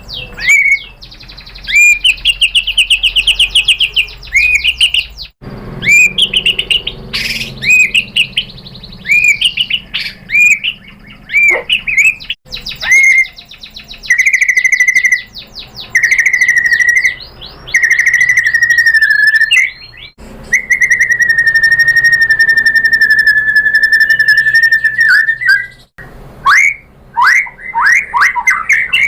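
White-rumped shama singing loudly: fast runs of repeated chirping notes and trills, then a long held whistle in the second half, with a few abrupt breaks where song passages are spliced together.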